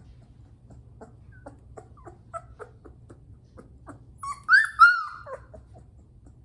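Three-week-old Bernese Mountain Dog puppy whimpering while its nails are clipped: a run of short, soft squeaks, then two loud high-pitched cries about four to five seconds in.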